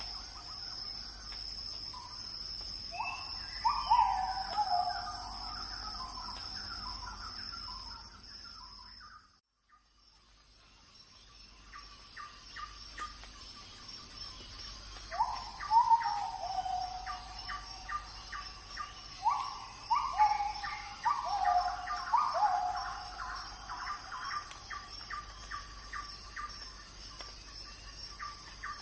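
Birds calling and chirping, with repeated swooping calls and quick ticking notes, over a steady high insect drone; the sound cuts out briefly about nine seconds in.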